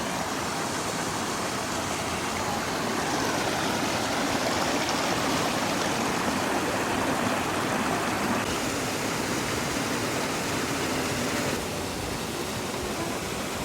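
Steady rushing of falling water, a dense even hiss with no rhythm, which shifts abruptly in tone about eight and a half seconds in and again near twelve seconds.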